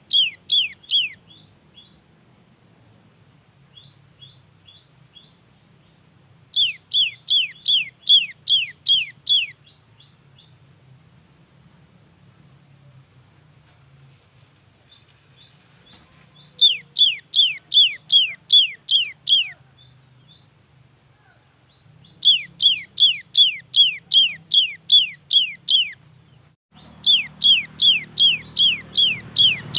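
Gelatik batu (cinereous tit) singing in bouts of about three seconds of quickly repeated down-slurred notes, about three a second, with softer short notes between bouts. A background hiss comes up near the end.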